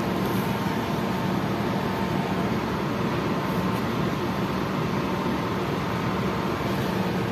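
A steady mechanical hum with an even noise over it.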